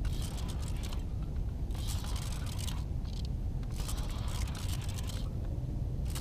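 Fishing reel being cranked in three short spells of about a second each, with pauses between them, as the angler winds line in on a hooked sturgeon. A steady low rumble sits underneath.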